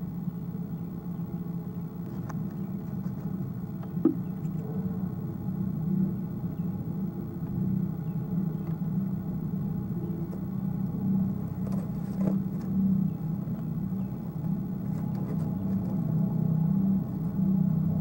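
Steady low rumble that grows a little louder, with a sharp click about four seconds in and a few faint ticks later.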